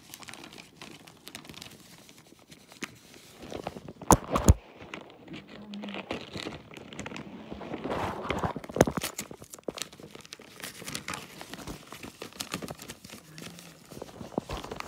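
Plastic mailing packaging being crinkled and torn open by hand, with irregular rustling and a couple of sharp knocks about four seconds in.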